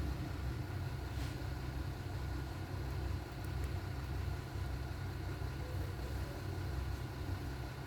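Steady low rumble of a running engine or machine in the background, with a faint click about a second in.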